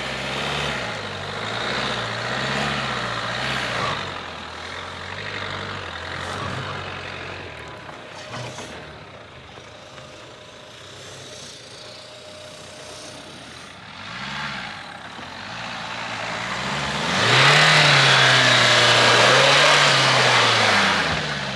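Dacia Duster 2021 facelift 4x4's engine revving up and down under load as it climbs a steep grass slope off-road, with quieter lulls between. It is loudest for a few seconds near the end, when the revs rise and a rushing noise joins the engine.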